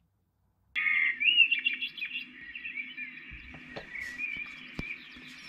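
Lumie Bodyclock Glow 150 wake-up light sounding its birdsong alarm: recorded chirping and warbling birdsong through the clock's speaker. It starts abruptly about a second in and keeps going.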